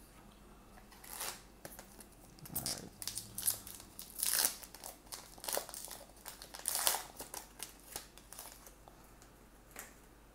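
A trading-card pack wrapper being torn open and crinkled by hand: a run of irregular crackles and rips, loudest a little before the middle and again past it.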